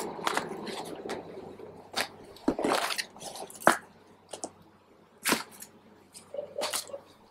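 Cardboard box flaps and plastic wrapping rustling and crinkling as packed items are pulled out by hand: irregular sharp crackles with short pauses between.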